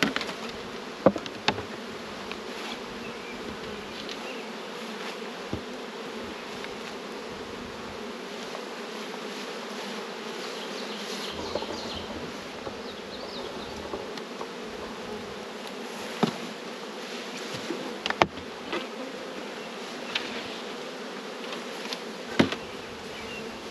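Honey bees buzzing steadily around the opened hives, a constant low hum. A few sharp wooden knocks and clicks as hive boxes and frames are handled cut through it, about a second in and again several times in the last third.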